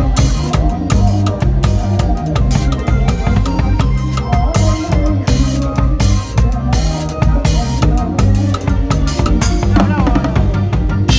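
Thai lam phloen band music: drum kit and bass playing a driving beat with a melody line over it.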